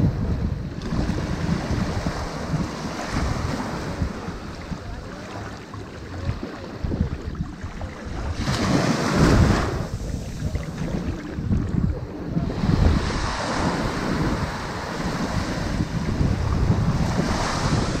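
Sea waves breaking on a shingle beach, the surf swelling and falling back in surges, with the loudest crash about halfway through.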